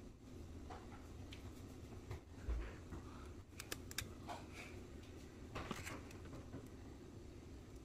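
Faint clicks and a short crackle of a brown eggshell being cracked and pulled apart by hand while separating eggs, with a soft low bump about two and a half seconds in.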